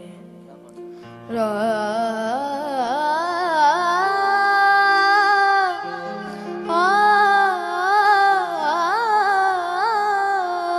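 A young boy singing into a microphone in a slow classical style: long held notes with bending ornaments, starting about a second in and pausing briefly midway, over a steady drone accompaniment.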